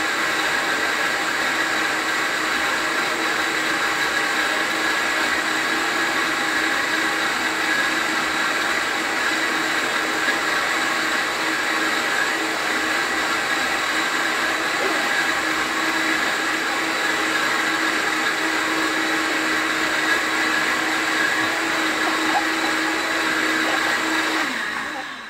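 Countertop blender motor running steadily at one speed, blending a green smoothie, then cutting off near the end.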